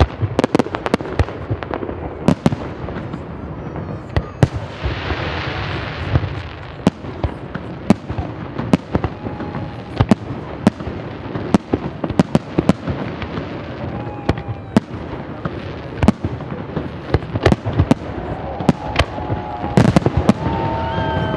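Fireworks display: aerial shells bursting in rapid, irregular bangs, with a hissing stretch about five seconds in.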